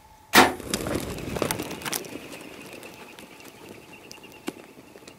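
A sudden loud crack, then a herd of eland bolting: hooves drumming and clattering on dry ground, loud for about two seconds and then fading away.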